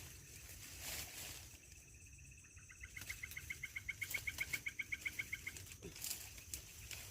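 A rapid trill from a calling animal, likely a night frog, insect or bird: short high notes at about eight a second, starting about three seconds in and lasting two to three seconds.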